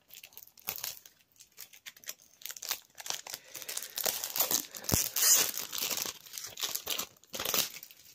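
Plastic shrink-wrap being torn and crumpled off a DVD case: irregular crackling, sparse at first and densest in the second half, with a single sharp knock about five seconds in.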